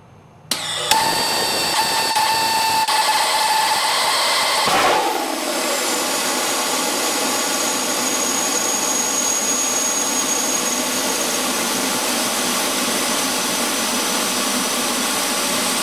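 Hybrid rocket motor, gaseous oxygen burning a Plexiglas fuel grain, firing through an aerospike nozzle. It lights suddenly about half a second in, then runs as a steady, loud hissing roar. A held whistle-like tone rides on it for the first few seconds, the sound shifts about five seconds in, and a faint high whistle comes in for a while after.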